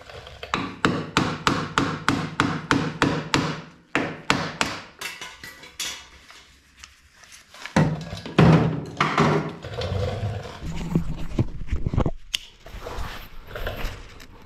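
Hammer striking a cold chisel, cutting through the spot-welded sheet-steel flange of a VW Beetle floor pan half: quick runs of sharp strikes, about three or four a second, over background music.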